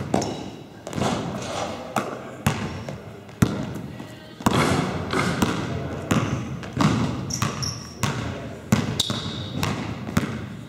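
A basketball being dribbled on a sports-hall wooden floor: irregular bounces about one or two a second, each echoing in the hall, with short squeaks of trainers on the floor now and then.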